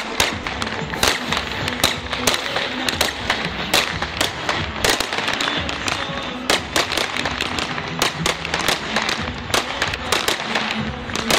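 Fireworks display: aerial shells bursting overhead with frequent sharp bangs and crackles.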